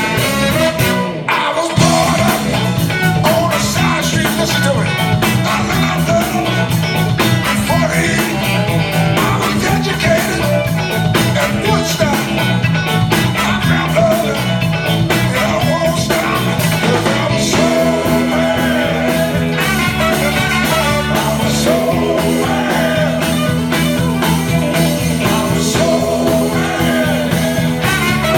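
Live soul band playing, with a singer over a walking bass line and steady drums; about two thirds of the way in, the bass changes to longer held notes.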